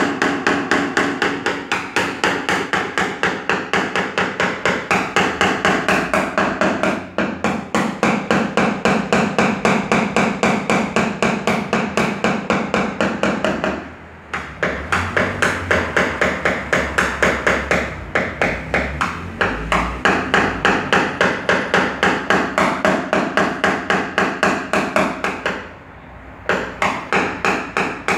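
Small hammer tapping a tap-down punch against a car's sheet-metal roof in paintless dent repair, knocking the panel smooth. The taps are quick and even, about four a second, with a few short breaks.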